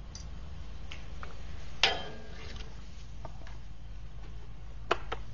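Metal gate clanking as it is handled: a few sharp knocks and clicks, the loudest about two seconds in with a brief ring, two quicker ones near the end, over a steady low hum.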